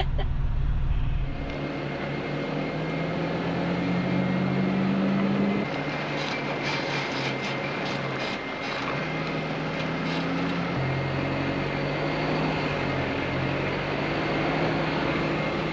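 Truck's diesel engine running while driving, a steady drone that shifts pitch a few times.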